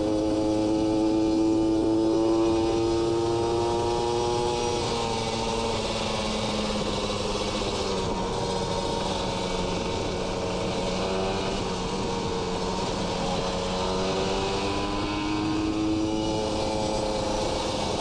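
Kawasaki Ninja RR's single-cylinder two-stroke engine through an R9 Neo Mugello carbon racing exhaust, heard from the rider's seat under way with wind rush. The revs hold and climb slightly, then drop off about five seconds in. The engine runs lower through the middle and climbs again briefly near the end before easing off.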